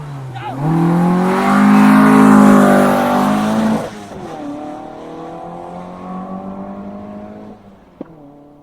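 Rally car engine at full throttle as the car launches from the start, loudest for about three seconds. About four seconds in it drops to a lower, steadier engine note that fades away, with a short sharp click near the end.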